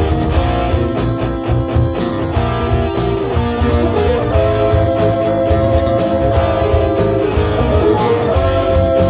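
Rock instrumental: electric guitar holding long lead notes over bass and a steady beat.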